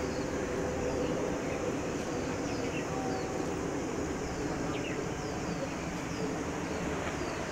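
Outdoor ambience: a steady low hum under an even background wash, with a bird repeating a short, high, falling chirp over and over.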